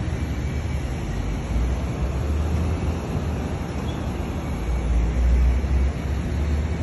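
Wind buffeting a phone's microphone outdoors: a low, blustery rumble that swells in gusts, loudest a little after the middle.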